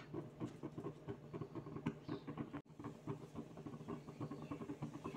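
Faint, dense crackling and ticking of a roti cooking on a hot tawa, with a momentary gap about halfway through.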